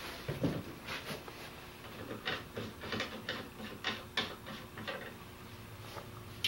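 Irregular metallic clicks and ticks as a pedal is unscrewed and taken off the crank arm of a Bike Friday folding bike.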